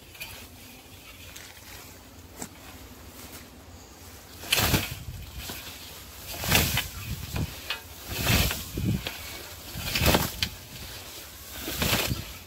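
Hand scythe swishing through alfalfa and maize, five cutting strokes a little under two seconds apart, beginning about four seconds in after a quieter stretch of light rustling.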